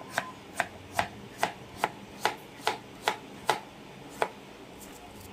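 Kitchen knife slicing through squash and striking the cutting board, about ten even chops at roughly two and a half a second that stop near the end.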